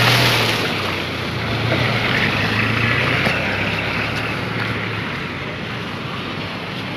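Motor vehicle engine running close by, its low hum fading out about five seconds in, over a steady rushing noise of wind on the microphone.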